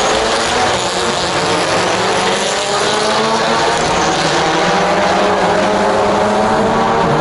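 Several circuit race cars running on the straight, their racing engines' exhaust notes overlapping in a loud, steady drone with slight rises and falls in pitch.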